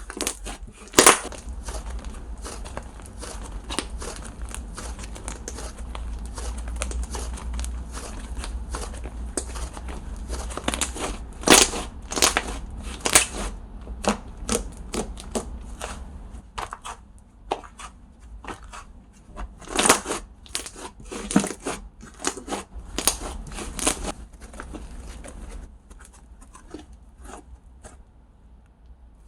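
Handmade slime being squeezed, stretched and poked close to a pin microphone, giving rapid crackling clicks and pops, with a few louder snaps scattered through.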